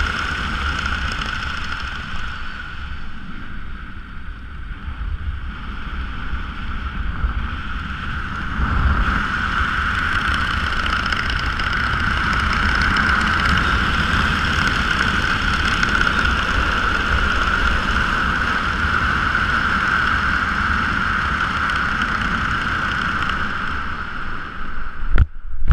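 Steady wind rushing over a skydiver's camera microphone while descending under an open parachute. Near the end it breaks into a few sharp knocks and rustles as the jumper touches down on grass.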